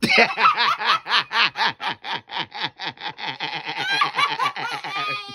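A woman laughing hard and without a break, in quick falling pulses about four or five a second, with a few higher squeals near the end.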